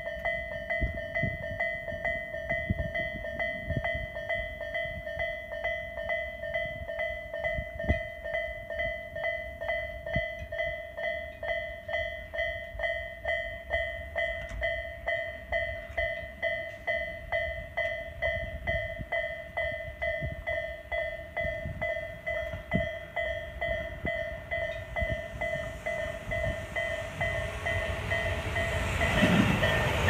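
Railway level-crossing warning bell ringing in a steady, even repeated ding while the barriers are down. Over the last few seconds the approaching train's noise rises, growing loud as it reaches the crossing.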